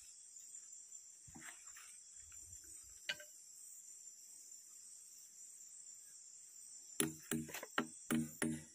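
Steady high-pitched chorus of insects. Near the end comes a quick run of about six sharp knocks, louder than the insects.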